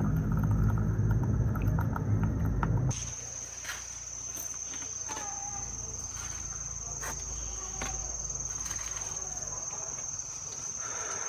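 A loud low hum that cuts off about three seconds in. It gives way to a steady high-pitched insect trill, typical of crickets, with scattered light clicks.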